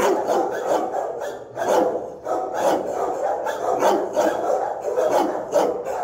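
Shelter dog in a kennel barking hard and nonstop, a rapid, unbroken string of harsh barks. It is tense, defensive barking at a person entering the kennel room: the dog is guarding his space, the excessive kennel barking of a fearful, frustrated dog.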